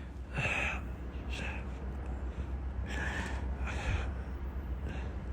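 A man breathing heavily and audibly, several loud breaths in and out over a steady low hum.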